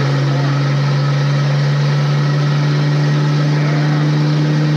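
Old Chevy C10 pickup heard from inside its cab while being driven: a loud, steady engine and road drone that holds one even pitch.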